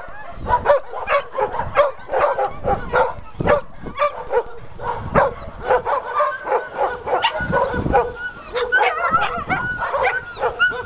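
Several dogs barking and yipping all at once in a dense, overlapping chorus, with high whines mixed in during the second half.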